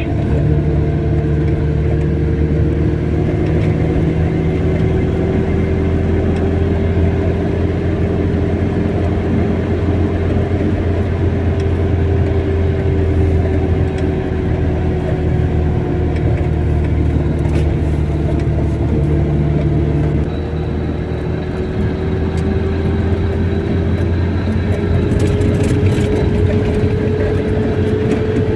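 Car driving along a road: a steady engine and road drone with a tone that slowly drifts up and down in pitch.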